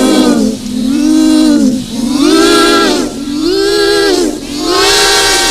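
A voice making a loud, wailing 'alien' noise that rises and falls in about five swells.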